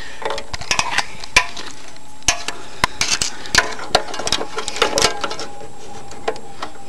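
Close handling noise: irregular clicks, scrapes and rubbing from a hand and fingers moving right against the microphone, with a few sharper taps scattered through.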